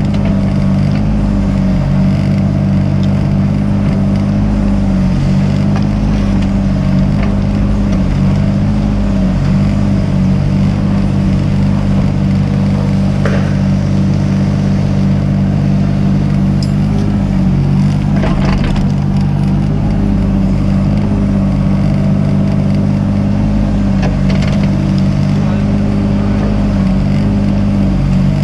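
Mini excavator's diesel engine running steadily at working revs, its pitch wavering slightly as the hydraulics take load. A sharp knock comes roughly halfway through, and a longer scraping clatter follows a few seconds later.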